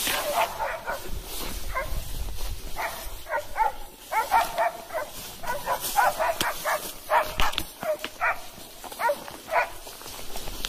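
Hunting dog barking repeatedly, in irregular runs of short barks.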